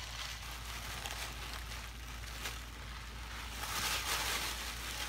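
White tissue paper crinkling and rustling as it is pulled out and bunched up by hand, loudest about four seconds in.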